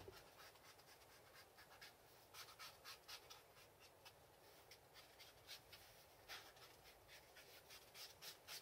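Faint, irregular scratching and small clicks, several a second: hand tools being worked against leather.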